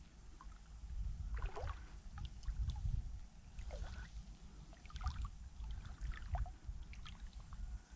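Shallow muddy water sloshing as a woven bamboo scoop is pushed through it, with a scatter of small splashes and bubbling drips over a low rumble.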